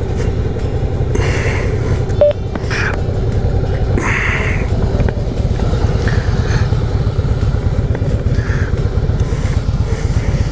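Two V-twin motorcycles, a Suzuki V-Strom 650 and a Harley-Davidson Fat Boy Lo, idling and rolling at walking pace with a steady low, pulsing engine rumble.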